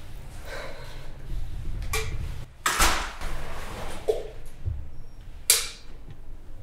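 A few small knocks and clicks of movement, with a louder scuffing knock about three seconds in. Then, about five and a half seconds in, a sharp snap with a short hiss: a drinks can being pulled open.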